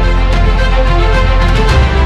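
Background music: sustained chords over a deep bass line with a regular beat; the bass note changes near the end.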